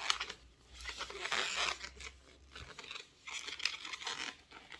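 Fingers rubbing and working the knotted end of an inflated latex twisting balloon (260 type), giving irregular rough rubbery rubbing bursts with a few small clicks.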